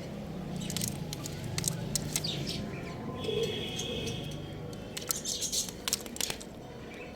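Young chicken chirping, with one longer even-pitched peep about three seconds in. Sharp clicks and taps are scattered through, most of them in a cluster near the end.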